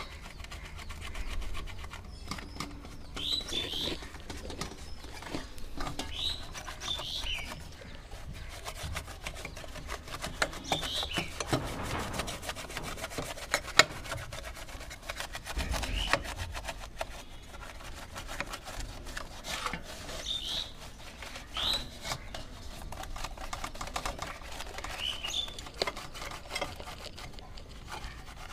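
A flat bristle paintbrush scrubbing a CRT TV main circuit board lathered with detergent and water in a metal basin, a rapid, continuous scratchy brushing. Birds chirp briefly now and then.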